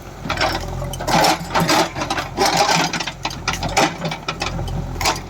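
JCB 3DX backhoe loader's diesel engine running, with irregular clanking and knocking over it.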